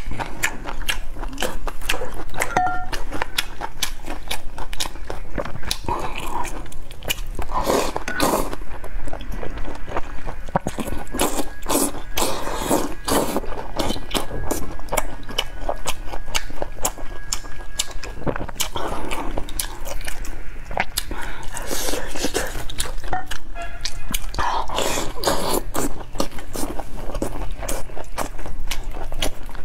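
Close-miked eating of noodles and enoki mushrooms from spicy broth: biting and chewing with many small wet mouth clicks, picked up by a clip-on collar microphone.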